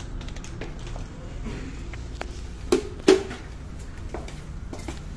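Handling sounds of a plastic electric hand blower: light clicks, then two sharp knocks in quick succession about three seconds in as it is set down on a tile floor.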